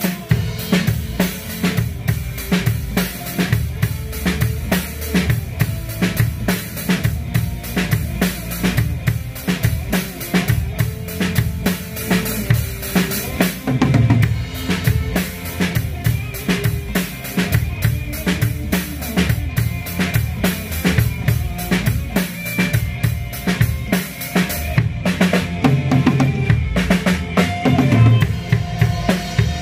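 Acoustic drum kit played with sticks in a steady beat, bass drum, snare and cymbals, over a backing track of the song with bass and other instruments.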